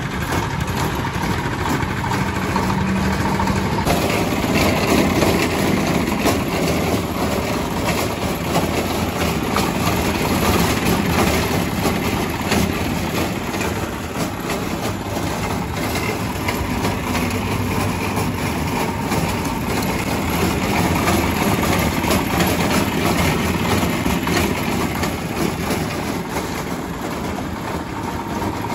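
Motor-driven mortar-and-pestle grinder running steadily, its wooden pestle turning and grinding sardai paste in the wide bowl.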